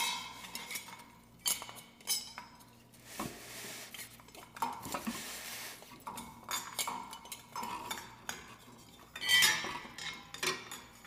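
Metal clinking and rattling as wires are pushed and fed through a ceiling fan's metal down rod, with a stretch of scraping midway and the loudest clatter near the end.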